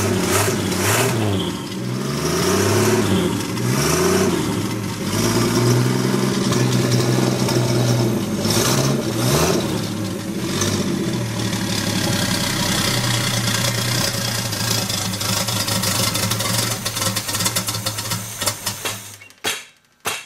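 Cold turbocharged engine on a run stand, revving unevenly up and down, then running more steadily before it quits near the end. It is cold-blooded and still needs tuning.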